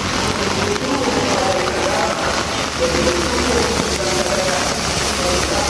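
Heavy rain pouring onto a wet paved street, a dense steady hiss, over a low hum of passing traffic. Faint voices come through under the rain.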